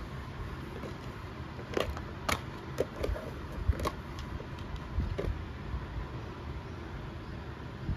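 Plastic takeaway containers and a disposable bowl being handled on a table: a few light clicks and taps, most of them in the first half, over a steady low rumble.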